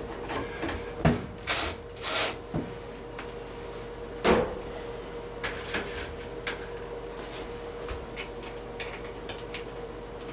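Hand tools and screws knocking and clicking against the metal hinge parts of a washing-machine door as the hinge is being screwed in. There are several sharp knocks in the first half, the loudest about four seconds in, then lighter ticks.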